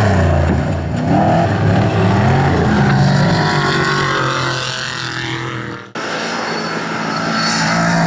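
Off-road trophy truck's engine running at high revs as the truck races over desert dirt, its pitch rising and falling. The sound breaks off abruptly about six seconds in, then returns and swells as the truck comes close again.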